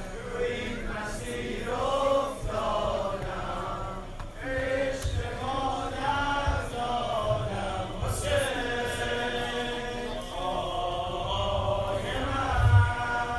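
Male voices chanting a Persian noha, a Shia lament for Karbala, in chorus with long held sung lines. A few dull low thumps sound with the chant, the loudest near the end.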